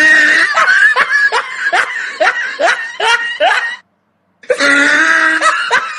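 A woman sneezing loudly, set off by tickling her nose with grass, each sneeze trailing into a run of short laughs that fade; this happens twice, the second about four seconds in.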